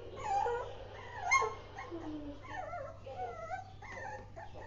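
Lhasa Apso puppy whining, a string of high wavering whimpers with a sharper yip about a second in, as it wants out of the basket it has been shut in.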